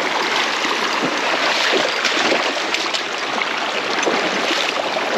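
A mountain stream rushing steadily over rocks.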